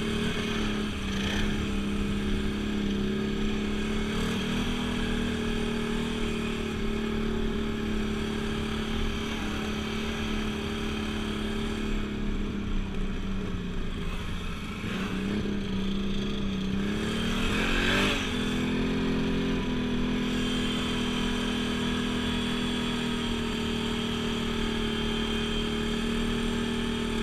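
Off-road vehicle engine running at a steady mid speed, easing off briefly, then climbing in revs to a peak about two-thirds of the way through before holding steady again.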